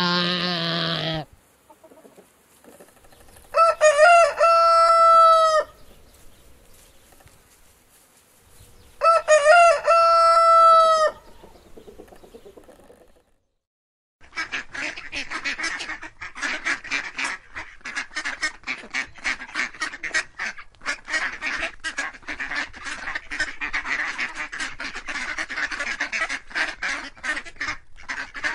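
A lamb's bleat ends about a second in, then a rooster crows twice, each crow about two seconds long. From about halfway a flock of ducks quacks continuously, many short calls overlapping.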